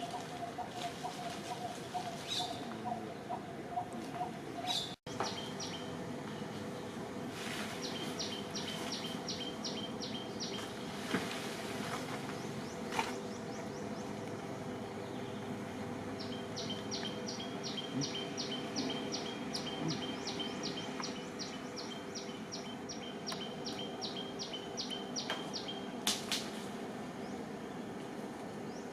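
Outdoor ambience with a steady low background hum, over which a bird repeats a short high chirp about three times a second in two long runs, the second starting about halfway through.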